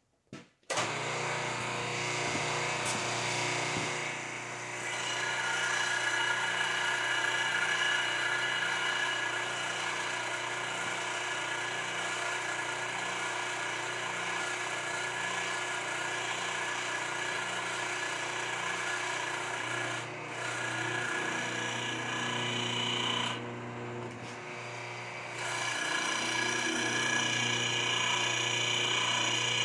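Electric motor of a large shop press running steadily, starting abruptly about a second in, with its sound dipping briefly a few times, as the press table is lowered.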